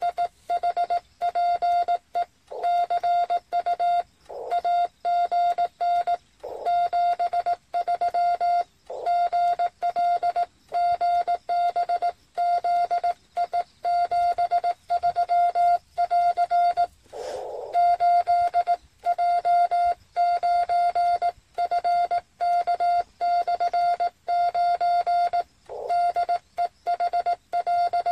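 Morse code (CW) from a Yaesu FT-817 QRP transceiver: a single clear beep keyed on and off in dots and dashes, at a steady pitch, during a ham radio exchange. A short burst of hiss breaks in about two-thirds of the way through.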